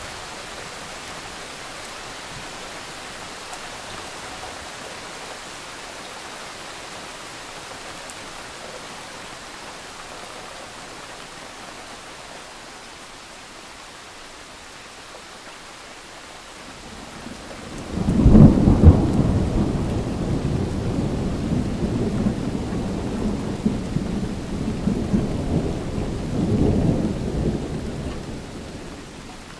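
Thunderstorm: steady rain hiss, then about two-thirds of the way in a sudden loud thunderclap that rolls on as low rumbling for about ten seconds. The rumble swells once more before fading near the end.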